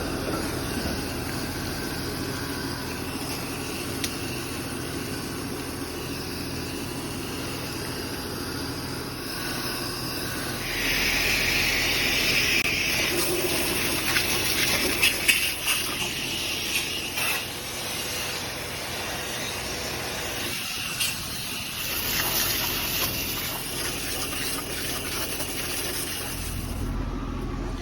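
Water spraying onto an air-conditioner condenser coil to wash it down: a steady hiss that grows louder about ten seconds in, with a few sharp knocks in the middle.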